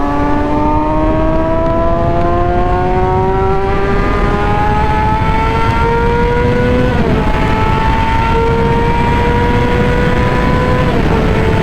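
Yamaha R6 inline-four sport-bike engine under steady acceleration, its pitch climbing slowly, then dropping sharply on an upshift about seven seconds in and again near the end. Steady rushing noise runs beneath the engine.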